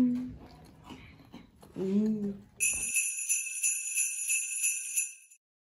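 Jingle-bell shimmer transition sound effect: a bright, high ringing that pulses quickly, coming in about two and a half seconds in, lasting nearly three seconds and cutting off abruptly. Before it there is a brief held voice at the start and a short vocal sound about two seconds in.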